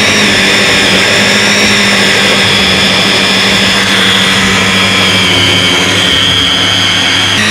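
Electric hand-blender chopper running continuously, its motor blitzing chickpeas, peanut butter and oat flour into a thick dough. It makes a loud, steady motor whine over a low hum, the whine sagging slightly in pitch partway through.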